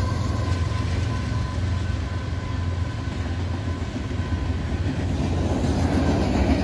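Union Pacific diesel freight locomotives passing close by with a deep, steady engine rumble, as the last of the horn fades out in about the first second. Boxcars then roll past behind them, and the wheel noise builds near the end.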